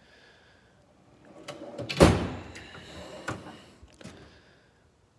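Metal tool box drawer sliding on its runners and shutting with a sharp bang about two seconds in, followed by a rattle and a few clicks as a drawer moves again.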